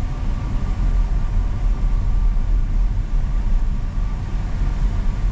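ACE Forma tractor's 50 HP Kirloskar diesel engine running steadily under load, driving on the road at about 33–34 km/h.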